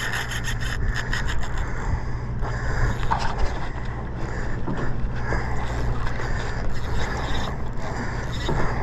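Big-game fishing reel being cranked against a hooked tuna, its gears giving a scraping, rubbing sound, with a quick run of clicks in the first couple of seconds. The boat's engine drones steadily underneath.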